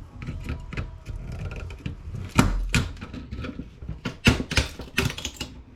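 Small aluminum heat sinks being pried off a circuit board, their small mounting pins snapping: a series of sharp clicks and snaps, one loud snap about two and a half seconds in and a quick cluster in the last two seconds.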